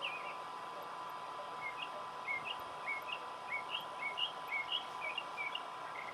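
Bird chirping outdoors: a quick series of short chirps, two or three a second, over a steady faint drone.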